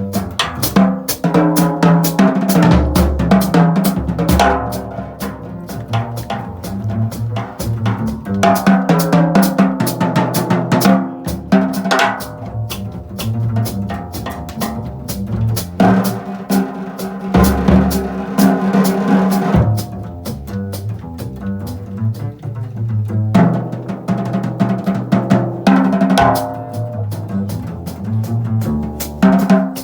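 Live jazz band playing with the drum kit up front: busy snare, bass drum, rimshot and cymbal strokes over held pitched notes from the other instruments.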